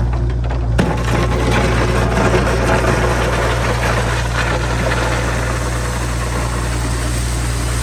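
Small trencher's engine running steadily under load. About a second in, a harsher grinding, rattling noise joins it as the machine digs.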